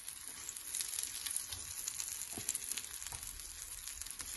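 Butter sizzling under a stuffed sandwich toasting on a hot flat iron griddle (tawa): a steady sizzle with fine crackles.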